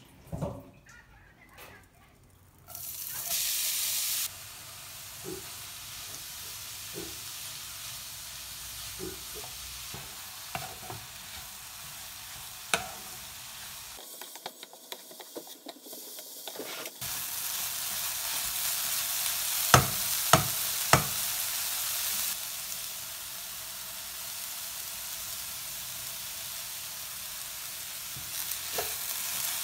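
Grated carrot and beetroot sizzling in a hot frying pan, starting about three seconds in, loudest at first, then a steady sizzle while a spatula stirs and scrapes the pan with scattered clicks. Three sharp knocks a little past two-thirds of the way through are the loudest sounds.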